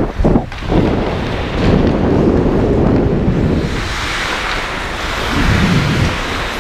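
Wind buffeting the microphone of an action camera worn by a skater moving fast, a heavy low rumble. About four seconds in it gives way to a steadier, brighter hiss of skate blades scraping across the ice.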